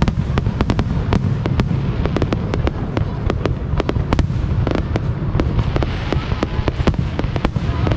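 Aerial fireworks going off in a dense barrage: rapid sharp cracks and bangs, several a second, over a continuous low rumble of bursts.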